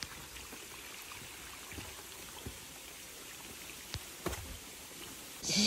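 Steady hiss of a small forest stream trickling over rocks, with a few scattered footsteps on roots and leaf litter and a brief loud hiss near the end.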